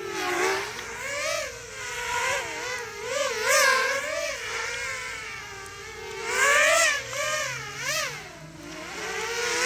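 Racing quadcopter's Emax RS2205 2300KV brushless motors and Gemfan 5045 props whining, the pitch swooping up and down quickly with throttle as it flies close by. It is loudest about half a second, three and a half seconds and seven seconds in.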